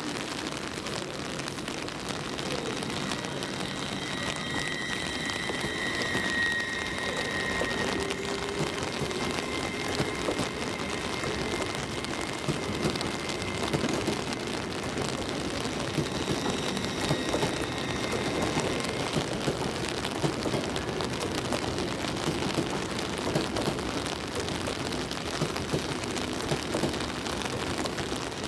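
Passenger train running along the track: a steady rush of wheel and rail noise with dense crackling clicks, and a faint high whine that comes in twice and fades.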